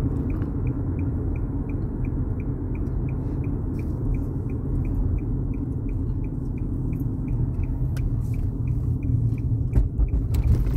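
Steady low road rumble inside a moving car, with a light regular ticking about three times a second and a few knocks near the end.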